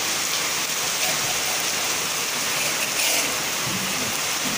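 Heavy rain pouring and floodwater rushing, one steady loud hiss.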